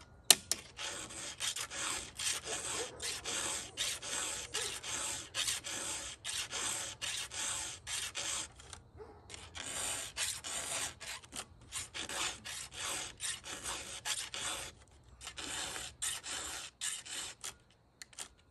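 Hand file sharpening the cutters of a skip-tooth chainsaw chain: short rasping strokes about two a second, in runs broken by brief pauses, after a sharp click at the start.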